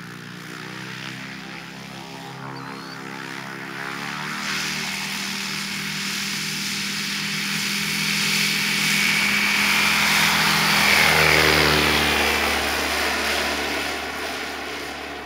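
Rotax 915 iS turbocharged four-cylinder engine and propeller of a RANS S7 light aircraft on its takeoff run, growing steadily louder as it comes down the grass strip and lifts off. At about eleven seconds the pitch drops and the sound fades as the plane passes and climbs away.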